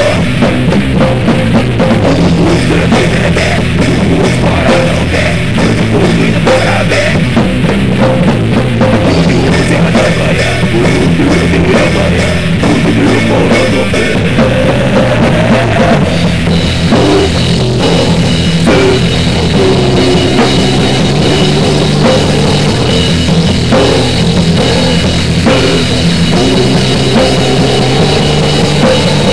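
Loud, heavy rock music, with a drum kit playing hard and cymbals among the hits.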